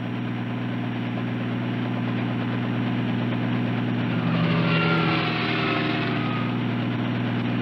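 Aircraft engine droning steadily, heard from inside the cabin: a low, even hum with a noisy rush over it. About halfway through, faint higher whines slide downward.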